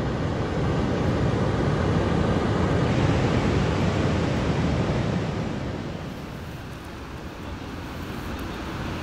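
Steady rush of river water pouring out through a dam's outlet gates, mixed with wind buffeting the microphone. It eases off a little after about six seconds.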